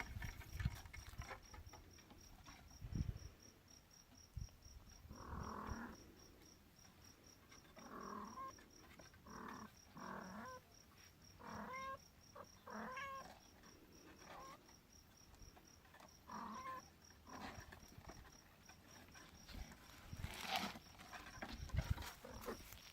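A young kitten mewing, a series of about ten short, high calls in the middle of the stretch, with a few soft knocks of movement near the start and near the end.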